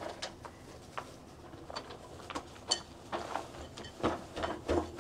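Scattered light clicks and knocks of kitchen handling: utensils, containers and food being moved about during food preparation.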